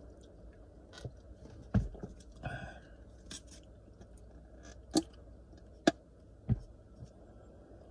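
Small handling noises: scattered light clicks and knocks, and a short sip from a paper coffee cup a couple of seconds in.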